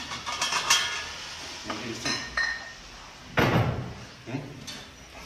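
Sharp metallic clinks and knocks from the gym equipment around a heavily loaded barbell in a bench rack, some with a brief ringing, as a lifter settles onto the bench; a louder, low, short thud about three and a half seconds in as he lies back.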